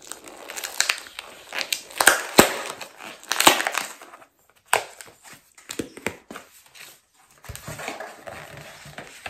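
Paper and packaging rustling and crinkling in irregular bursts as items are unwrapped and handled, with a few sharp clicks. The rustling is heaviest in the first few seconds and comes again near the end.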